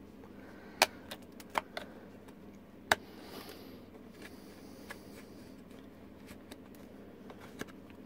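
A knife cutting through the corners of a cut-out in a plastic box lid: a few sharp clicks in the first three seconds as the blade snaps through the plastic, then faint scraping of the blade.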